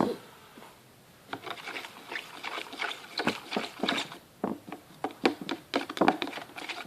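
Spoon stirring glue mixed with purple colouring in a container, with irregular scraping and clicking strokes starting about a second in. A sharp knock comes right at the start.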